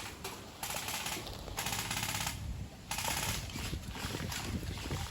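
Airsoft guns firing full-auto bursts: a fast, dry clicking rattle in several bursts of about half a second to a second each.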